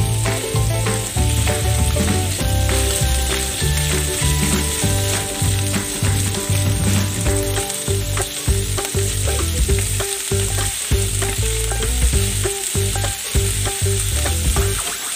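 Beef strips sizzling in hot olive oil in a stainless steel frying pan while a wooden spoon stirs them, scraping and knocking against the pan.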